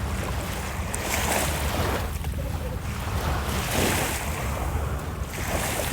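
Sea waves washing onto a beach in rolling swells, with wind rumbling on the microphone.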